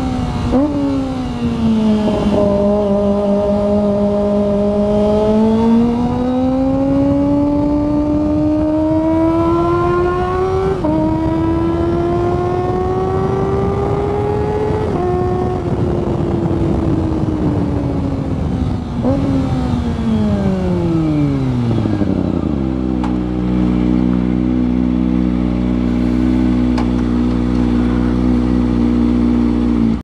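Kawasaki ZX-25R's 250 cc inline-four engine revving, its pitch climbing in steps through the middle, then falling steadily and holding level for the last several seconds.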